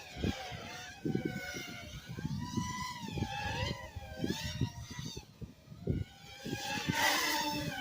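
FPV quadcopter motors whining, their pitch sliding up and down as the throttle changes during acrobatic flying, with a rough low rumble of wind buffeting. The motors surge loudest about seven seconds in.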